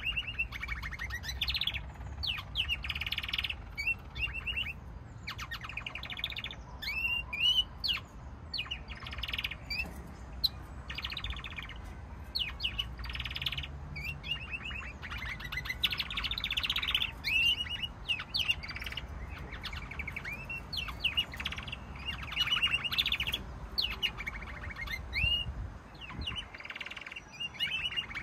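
Domestic canaries singing a long, continuous song of rapid trills and rolling runs broken by short whistled glides, over a low steady rumble.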